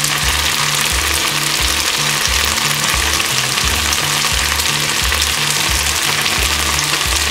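Potato sticks and chicken thigh pieces sizzling steadily in hot oil in a frying pan, with a low background-music bass line underneath.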